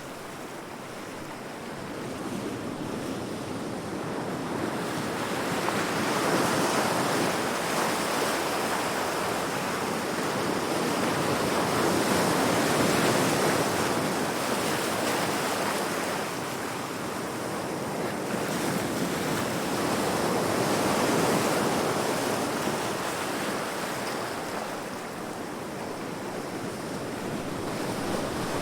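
Heavy ocean waves breaking against rocks, a continuous rush of surf that swells and ebbs every several seconds, with wind blowing.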